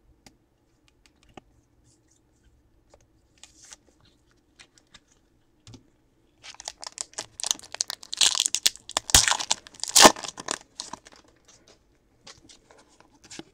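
A foil trading-card pack wrapper being torn open and crinkled, a loud crackling stretch of a few seconds starting about halfway through, with faint clicks of card handling before and after.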